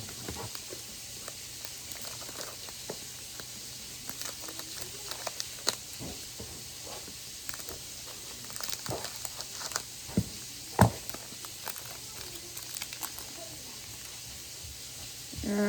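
Foil booster-pack wrapper crinkling and cards being handled: scattered soft crackles and clicks over a steady hiss.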